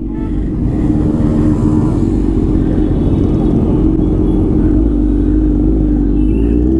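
Motorcycle engine running at a nearly steady pace while riding, over a continuous low road rumble.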